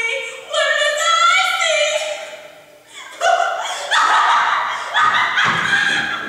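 A woman's voice singing long, held high notes on stage; about three seconds in the singing stops and gives way to a run of louder, rough-edged sounds roughly a second apart.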